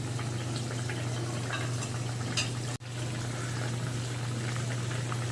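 Thin fish curry with taro and eggplant bubbling at a simmer in a pot, a steady soft bubbling over a constant low hum. The sound drops out for an instant near the middle.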